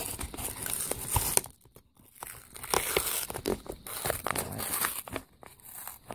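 Plastic packaging being torn open end to end along its tear strip, with crinkling of the plastic. It goes in two spells, broken by a short pause about one and a half seconds in.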